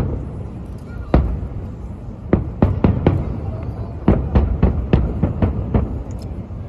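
Aerial fireworks shells bursting: a dozen or so sharp bangs in irregular quick succession, bunched in two volleys, over a continuous low rumble.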